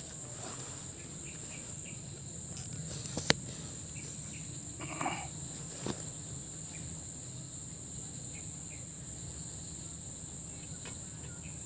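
Steady high-pitched drone of insects, crickets or cicadas, in the grass and trees. A single sharp click about three seconds in is the loudest sound.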